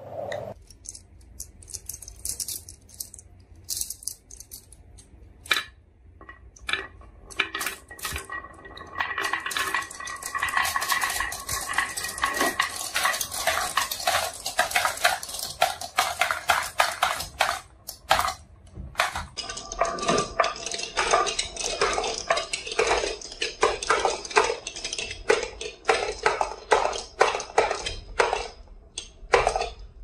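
Marbles rolling and clattering down a wooden slope with stick baffles and clinking as they drop into a plastic toy dump truck's bed. Scattered clicks at first, then a dense, continuous clatter from about ten seconds in.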